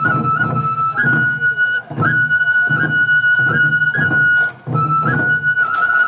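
Sansa drumming music: a Japanese transverse flute holds a high melody with quick ornamental flicks, over waist-worn sansa taiko drums struck together in a steady beat about once a second.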